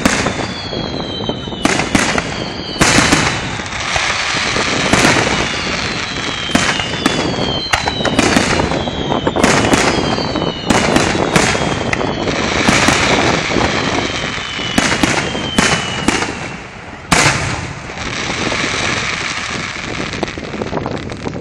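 Fireworks display: many sharp shell bursts following close on one another, with several whistles gliding down in pitch between them over the first two-thirds.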